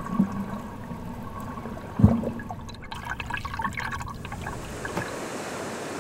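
Water gurgling and sloshing around a camera held underwater beside a swimming snorkeler, with one sharp knock about two seconds in. After about four seconds it turns into a steady hiss of water at the surface.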